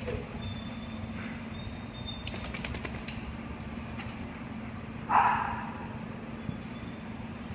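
A single loud dog bark about five seconds in, ringing briefly off hard walls, over a steady low hum, with a few light clicks a couple of seconds earlier.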